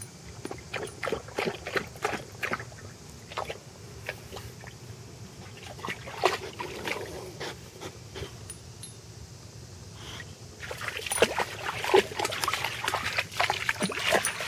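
A boxer dog wading and nosing through shallow, muddy creek water, with spells of short splashes and sloshes. They are busiest in the last few seconds as it steps through the water.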